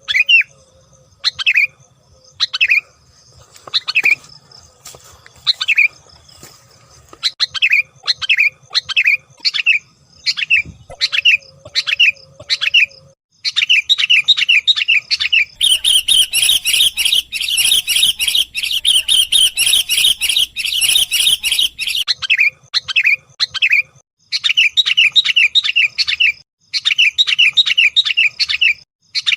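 Sooty-headed bulbul chirping: short call notes at first about one a second, quickening after about thirteen seconds into fast runs and a dense burst of chattering for several seconds, then fast runs of chirps again.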